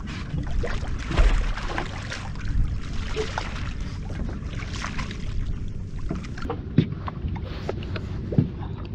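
Wind buffeting the microphone and water slapping against a drifting boat's hull, with a few sharp knocks near the end.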